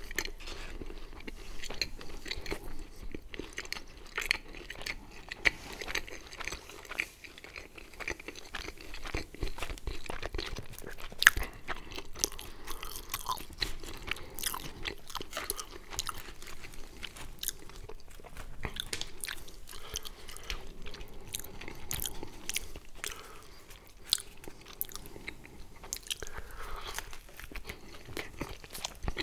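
Close-miked chewing and biting of pizza: wet mouth sounds with irregular crunching of the crust, and one sharper crunch about eleven seconds in.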